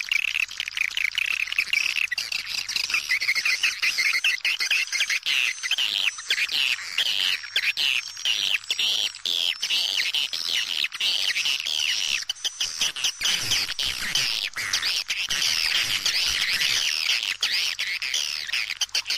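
Swiftlet lure call: many overlapping, high, rapid twittering chirps of edible-nest swiftlets, the kind of recording played from a swiftlet house to draw the birds in to roost and nest.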